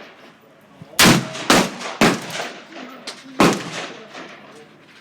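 Black powder revolver firing four shots, the first three in quick succession about half a second apart, then a fourth about a second and a half later, each with a short ringing tail.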